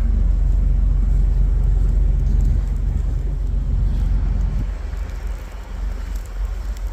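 Semi-truck engine and road noise while driving, a steady low drone that eases off about four and a half seconds in.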